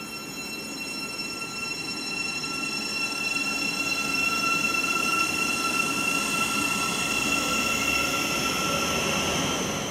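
Class 165 diesel multiple unit on the move: running rumble with a steady high whine and its overtones, growing louder over the first few seconds.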